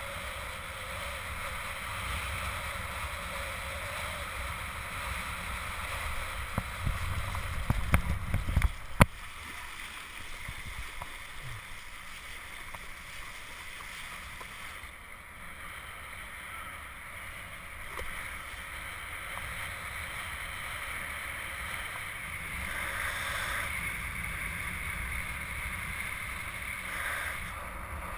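Wind rushing over an action camera's microphone and water hissing past as a kitesurfer rides a hydrofoil board. About seven to nine seconds in there is a stretch of heavy buffeting with a few sharp knocks.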